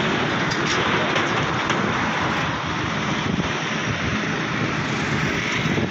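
Steady rushing noise of roadside traffic.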